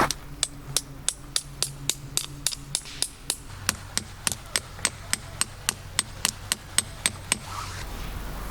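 Hammer driving a tarp stake, about four quick, even blows a second with a bright metallic ring to each strike. The hammering stops about a second before the end.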